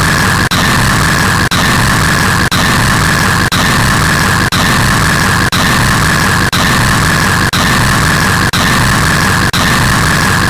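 Very loud, harsh white-noise static filling the whole range, with a shrill band in it and a brief dropout about once a second.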